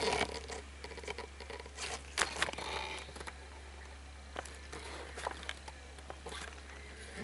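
Handling noise from a camera being carried and repositioned: scattered taps, clicks and brief rustles over a faint, steady low hum.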